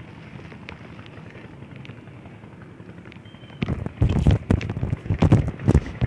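Handling and wind noise on a phone's microphone: a faint low rumble, then from a little past halfway loud irregular rustling thumps as the phone is moved about.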